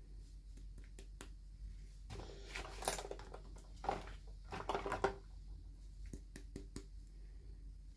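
Light handling sounds of small miniature toys and their packaging being unboxed: scattered soft clicks and short rustles, busiest in the middle.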